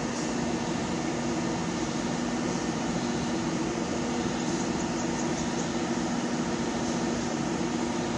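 Steady machinery hum with two low tones over an even hiss, unchanging throughout.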